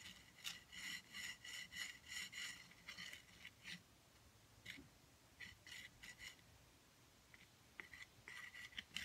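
Wooden drumstick scratching into wet paint on gessoed paper: faint, quick, short scraping strokes, about four or five a second, in several bursts with pauses between.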